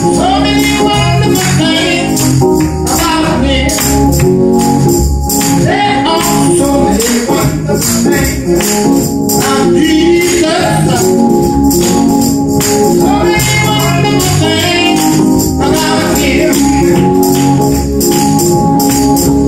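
Gospel song: a man singing solo while accompanying himself on a church organ, over a steady percussion beat.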